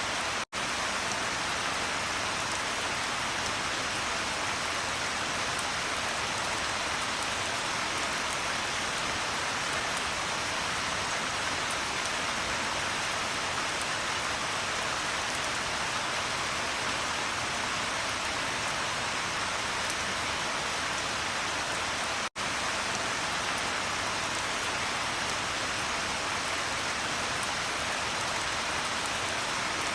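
Steady, even rain, falling at a constant level. It cuts out for a split second twice, about half a second in and again about 22 seconds in.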